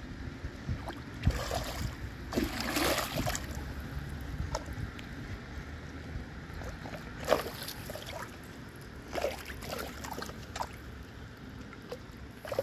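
Floodwater swirling and trickling down a street storm drain as a clog starts to clear, with wind rumbling on the microphone. Several sloshes and knocks come from a stick prodding at the drain, the loudest a few seconds in.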